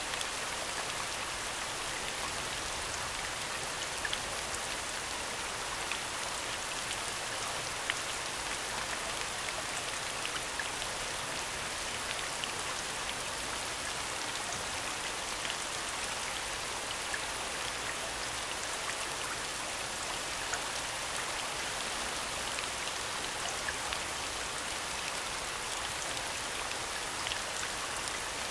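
Recorded soundscape of steady falling rain: an even hiss with scattered drops ticking.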